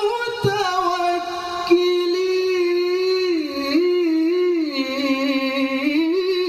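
Male qari chanting Quranic tilawah in one long, high held melodic phrase, with slow wavering ornaments that dip and rise in pitch.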